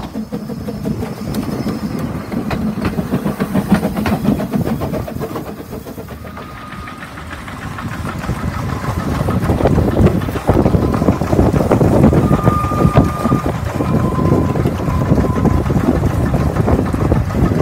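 Narrow-gauge NGG16 Garratt steam locomotive working past with its train: exhaust beats and running gear, quieter at first and growing louder from about halfway as it nears.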